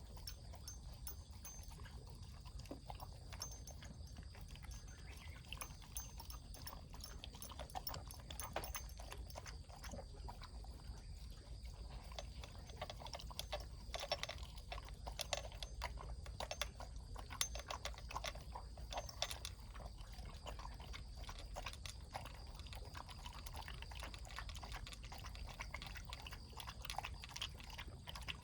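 A pet eating its breakfast: irregular small clicks and crunches of food being chewed, busiest in the middle stretch, over a steady low hum.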